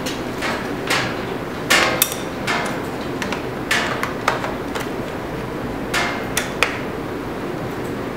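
Irregular sharp clicks and light knocks of hard plastic as a Canon 60D DSLR body and its power adapter are handled and the battery compartment is worked, over a steady background noise.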